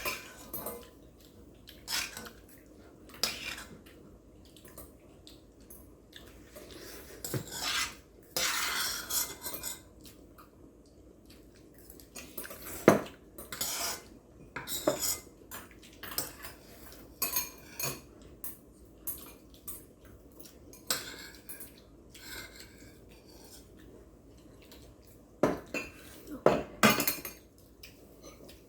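Metal spoons and chopsticks clinking and scraping against bowls and plates, in scattered knocks a second or so apart, with a few louder clacks near the end.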